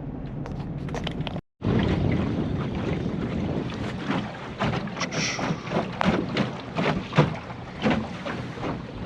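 Wind buffeting the microphone over water on a small boat, with irregular knocks and splashes. Vehicle road noise runs for the first second and a half, then cuts off abruptly at an edit.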